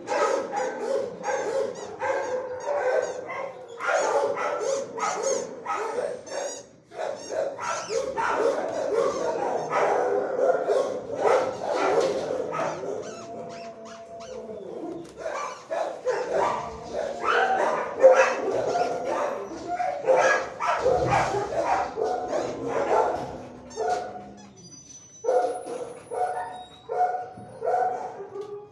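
Shelter dogs barking and yipping in their kennels, the calls overlapping for most of the time and thinning to a few scattered barks near the end.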